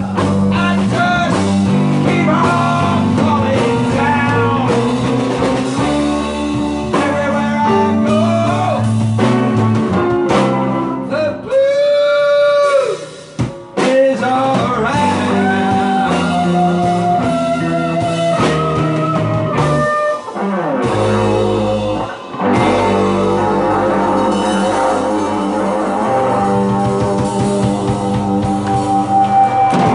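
Live blues band playing: guitar over bass and drum kit.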